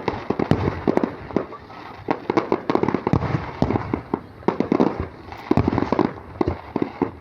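Aerial fireworks bursting in a dense, rapid barrage: loud bangs several times a second with crackling in between.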